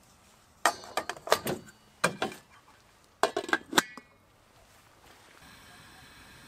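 Metal clinks and clatter as the Omnia stovetop oven is assembled on a portable gas stove: the cake mould goes into the stainless steel base and the lid is set on, in three short bursts of clinks with brief ringing. A faint steady hiss sets in near the end.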